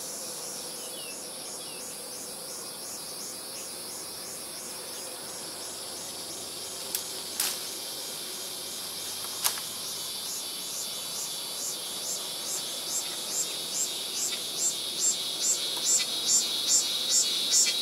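Insects chirping in a steady, high-pitched pulsing rhythm, about two to three pulses a second, growing louder toward the end over a constant high hiss. A few sharp clicks come between about seven and ten seconds in.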